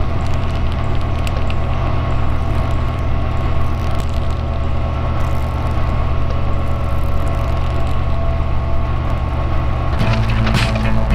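Old slide projector's fan and motor running with a steady hum and crackle. The hum shifts near the end, with a few ticks.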